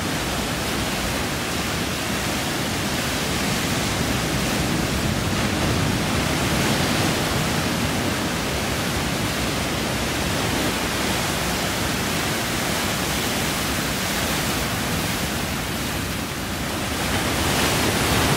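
Ocean surf washing up a sandy beach: a steady rushing that swells and eases slowly as small waves break and run up the shore.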